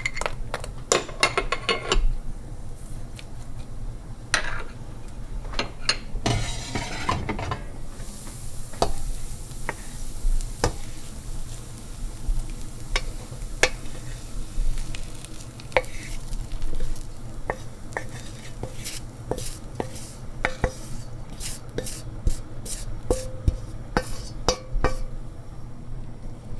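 Dried limes and salt going into a pot of ghormeh sabzi (Persian herb stew), then fried herbs scraped from a stainless steel skillet into the pot with a wooden spoon and stirred in: a run of scrapes and knocks of spoon and pan against the pot.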